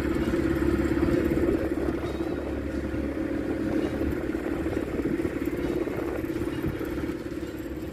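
Small motorboat's engine running steadily at one pitch while under way, with a wash of wind and water noise; it gets a little quieter near the end.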